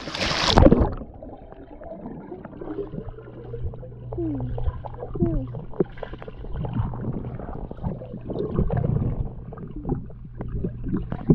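A splash as a man ducks under the water of a pool, then muffled underwater sound picked up by a GoPro in its waterproof housing: gurgling and bubbling with scattered small clicks and a steady low hum.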